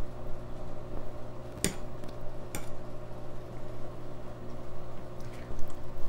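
A fork clicks against a plate twice, a little under a second apart, over a steady low hum.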